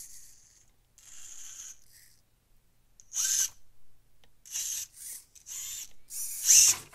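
SCX24-scale micro RC crawler's electric motor and gear drivetrain whirring in a series of short, high-pitched bursts, each under a second, as the throttle is blipped on its first power-up.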